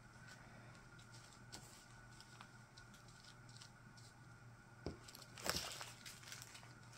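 Faint rustling and crinkling of small plastic zip bags of diamond-painting drills being picked up and set down on a paper sheet, with the loudest rustles a little before and just after five seconds in.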